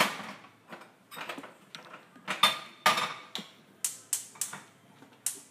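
A small frying pan clattering and knocking against the gas stove's burner grate as it is set down and shifted. The sharpest knock, with a brief ring, comes at the very start, followed by a series of irregular lighter clicks and taps.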